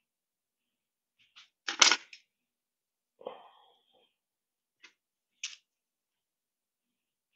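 Pottery hand tools being picked up and set down on a potter's wheel head: a few short knocks and rustles, the loudest near two seconds in, and two light clicks later on. A brief thin tone sounds just after three seconds.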